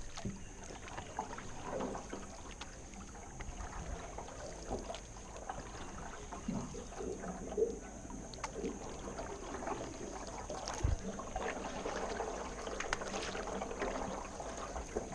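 Canoe paddles dipping and pulling through the water, with splashes and water trickling off the blades, and a single low thump about eleven seconds in.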